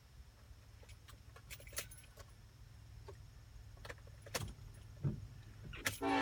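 Low steady rumble of a car idling, heard inside the cabin, with scattered light clicks and jingles. Right at the end a locomotive air horn starts sounding loudly.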